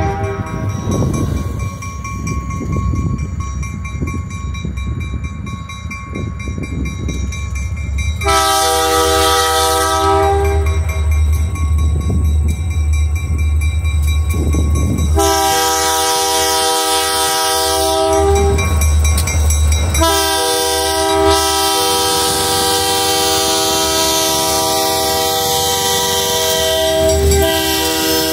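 Diesel locomotive's multi-chime air horn sounding for a grade crossing as the engine approaches. The horn is silent for the first eight seconds while the locomotive's low rumble and wheel noise carry on. Then come three blasts: one of about two seconds, one of about five seconds, and a last one held almost to the end, while the rumble grows louder as the locomotive nears.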